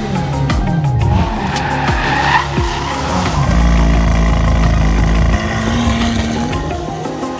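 High-performance car engines revving, their pitch climbing and falling again and again, with a steady deep rumble for a couple of seconds in the middle.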